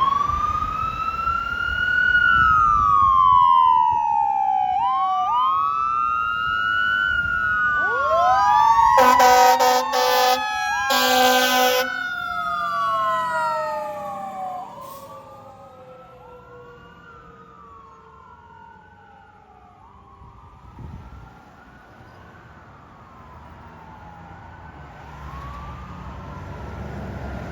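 Quint fire truck's sirens wailing, several overlapping tones sweeping up and down in pitch. About nine seconds in the truck's air horn gives two loud blasts, a second or so apart. Then the sirens fade.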